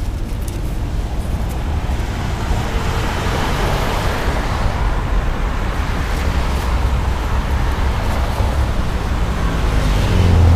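Road traffic noise: a vehicle passing on the street, swelling in the middle and fading again, over a steady low rumble.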